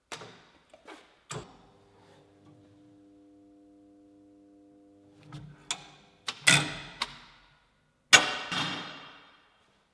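Baileigh manual sheet-metal brake clanking as it is clamped and worked: a few knocks in the first second and a half, a faint steady tone for a few seconds, then a run of loud metallic clangs from about five and a half seconds in, the loudest near eight seconds, each dying away with a ring.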